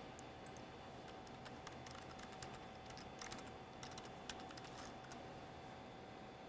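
Computer keyboard being typed on: a faint scatter of key clicks that stops about five seconds in, over a faint steady hum.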